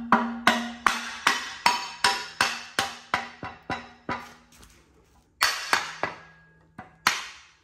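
Rubber mallet striking, through a shop rag, a metal DCT adapter plate on a Toyota 3UZ V8 block, tapping it onto the dowel pins to seat it tight. A steady run of blows about two or three a second, each leaving the metal ringing, pauses for about a second near the middle before a second run of blows.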